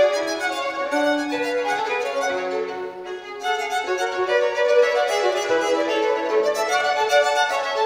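Two violins playing a duet together, both parts moving in sustained bowed notes, with a brief softer moment about three seconds in.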